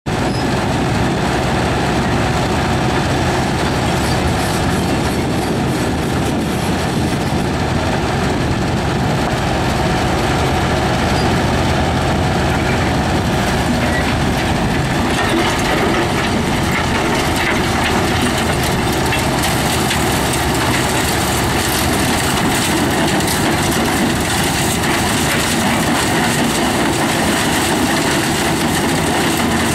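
Agri World FM-2000.12 mobile hammer crusher running under load, its hammer rotor breaking rubble with a loud, steady, dense rattling clatter of stone over the machine's engine.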